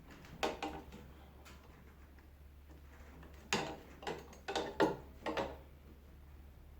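Small metal clicks and taps as a shear bolt is worked into its hole through a Honda HSS1332 snowblower's auger shaft: a few light clicks, then a quick run of louder taps about halfway through. A steady low hum runs underneath.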